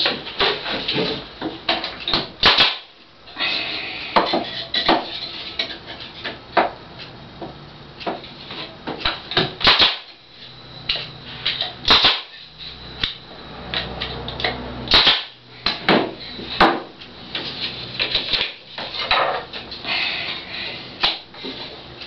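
Wooden beehive frame being put together: side bars, top bar and bottom bar knocked into place by hand and fastened with a pneumatic nail gun, giving an irregular string of sharp clacks, knocks and nail shots.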